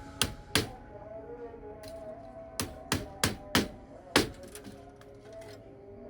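Hammer striking wood: seven sharp blows, two about half a second apart near the start, then a quicker run of four in the middle and one more just after, over background music.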